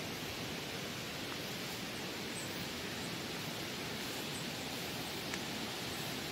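A steady, even rushing hiss with no distinct events, and one faint click about five seconds in.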